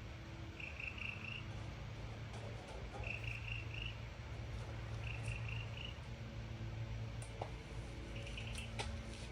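Frog trilling in short trills, each under a second long and repeating about every two seconds, over a steady low hum. A few light clicks come near the end.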